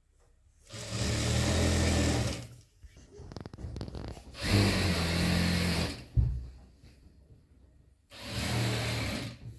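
JACK industrial lockstitch sewing machine stitching along a fabric edge in three short runs of a second or two each, stopping between runs. A sharp click comes just after the second run.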